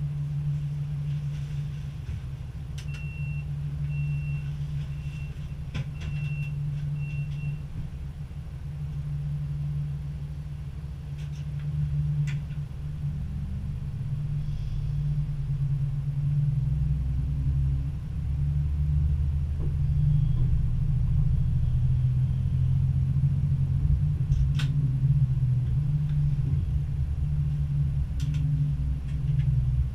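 Diesel-electric Stadler GTW railcar's engine running with a steady low hum while the train stands, then working harder and louder from about halfway as it pulls away slowly. A row of about six short high beeps sounds a few seconds in.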